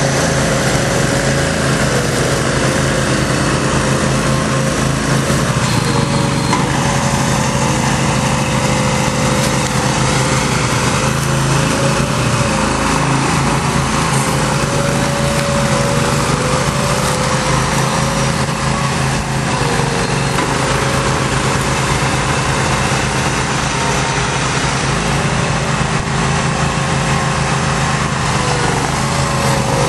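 Small engine of a compressed earth block machine running steadily under load, with a steady whine over its hum.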